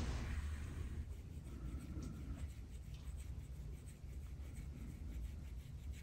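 Faint, repeated scraping strokes of a tool drawn over the skin of the back, the kind of scraping that brings up dark marks on the skin.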